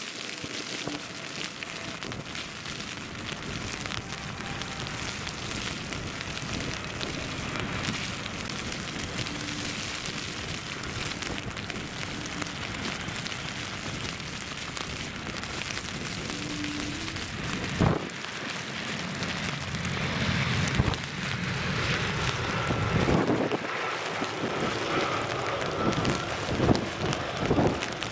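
Steady rush of a Boeing 777-200F freighter's GE90 jet engines landing on a wet runway, under rain and strong wind gusts buffeting the microphone. The noise grows louder in the last third as the thrust reversers open, and gusts thump the microphone now and then.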